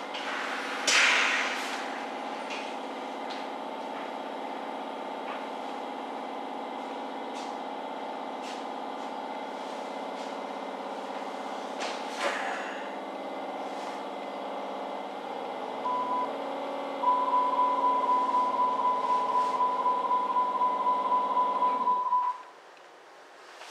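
Hamburg Hochbahn DT3-E U-Bahn train standing at a station, heard from inside: a steady hum of the train's on-board equipment, a short burst of air hissing about a second in and another about halfway through. Near the end a short beep, then a rapidly pulsing door-closing warning tone for about five seconds, which stops suddenly as the hum drops away.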